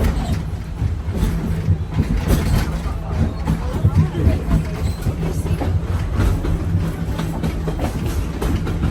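Passenger train rumbling along the track, heard from aboard a car, with the wheels clacking and knocking now and then.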